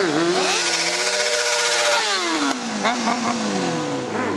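Kawasaki stunt motorcycle's engine revving hard through a wheelie. The pitch climbs and holds high, drops about two seconds in and holds lower, then dips and climbs again near the end.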